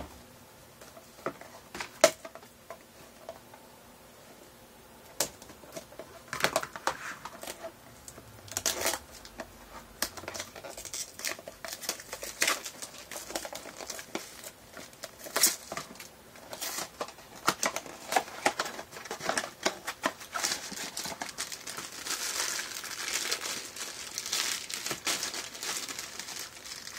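Hands opening a Funko Mystery Minis blind box and its foil bag: a few separate clicks and taps of handling, then a long run of crinkling and tearing of the packaging, densest near the end.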